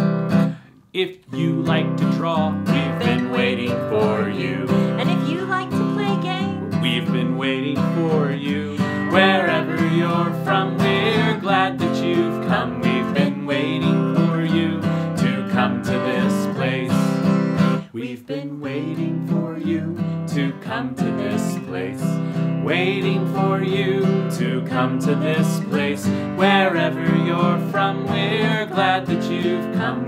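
Acoustic guitar strummed as accompaniment to a man and a woman singing a children's sing-along song, with a brief break about a second in and another about two-thirds through.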